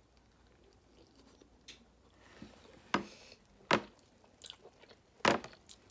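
A person chewing barbecue riblets close to the microphone, with a few soft mouth noises and three sharp smacks, about three, nearly four, and just over five seconds in.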